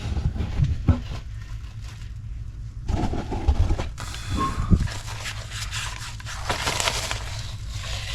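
Irregular scraping, clicks and knocks of hands-on work, with a low rumble underneath; the scraping gets busier about three seconds in.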